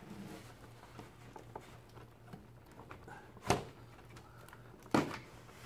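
HoverGlide backpack's gliding frame being forced by hand back onto its track wheels against the bungee cord's pull: faint rubbing and handling noise, with two sharp clacks about three and a half and five seconds in.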